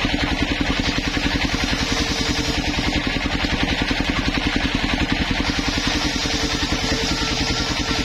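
Homemade engine-driven circular saw bench ripping wooden planks: the engine runs steadily with a fast, even pulse, and the blade's cutting noise rises and falls as the boards pass through.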